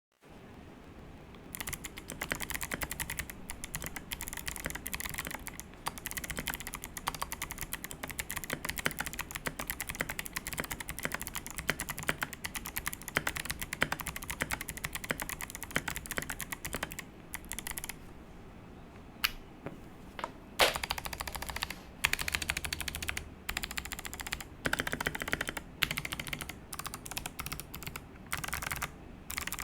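Keychron V1 mechanical keyboard with stock Kailh Box White clicky switches and MA profile keycaps, typed on quickly in a dense, continuous run of crisp clicks. About eighteen seconds in, the typing gives way to separate presses of the long stabilized keys on the stock Keychron screw-in stabilizers: heavier clacks in short groups with pauses between.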